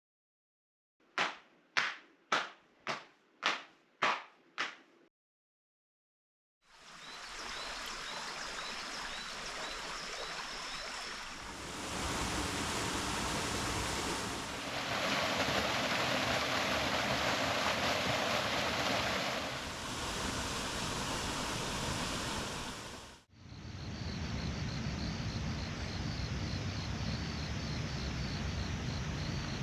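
Six short sharp strokes in quick succession, each fading fast, then rushing water from a mountain stream and waterfall that changes in level several times as the scene shifts. Insects chirp faintly in a quick, even pulse over the water in parts.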